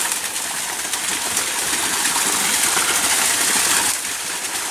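Small waterfall spilling off a rock into a stream: a steady rushing hiss of falling water.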